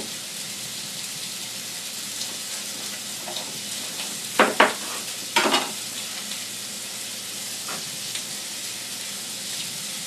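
Liver and bacon frying in a pan: a steady sizzle, with a few sharp clicks of a utensil against the pan a little before the middle and once more later.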